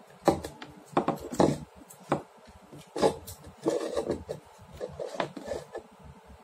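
Handling noise: a small halogen spotlight and its wires being moved about and laid on a hard tabletop, a string of irregular knocks and scrapes, the sharpest near the start and about three seconds in.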